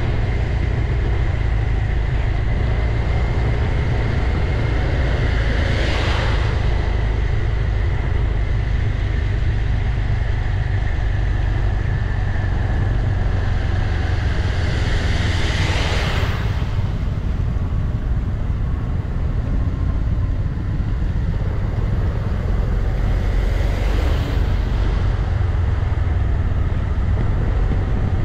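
Wind buffeting and road noise on a BMW C 400 X scooter in motion, heard through a camera on its windscreen: a steady low rumble. Brief swells of whooshing noise come about 6, 16 and 24 seconds in.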